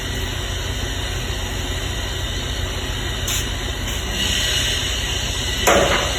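Steady low hum with an even hiss. A higher hiss comes in about four seconds in, and a short, sharp burst of noise comes near the end.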